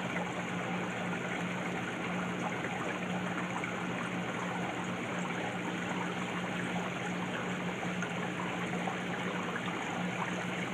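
Aquarium filter running: water trickling and splashing steadily, over a steady low hum.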